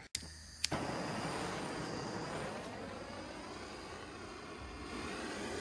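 Two sharp clicks, then a handheld propane torch catches and burns with a steady hiss.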